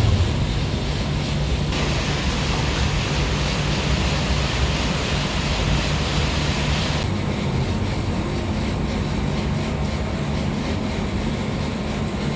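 Steady low rumble and hiss of a moving vehicle, heard from within it. The higher hiss grows louder about two seconds in and drops back about seven seconds in.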